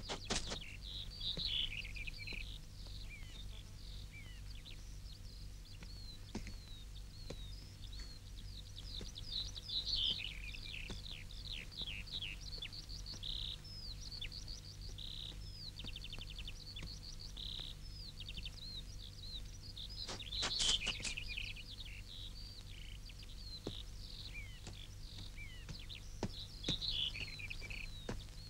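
Small birds chirping and trilling, with many short quick notes and sweeps, busiest about a third of the way in and again near two-thirds, over a low steady hum.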